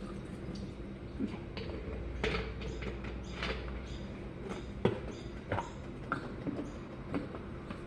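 Light clicks and knocks of plastic drink bottles being handled while they are filled with water and closed, over a low steady hum.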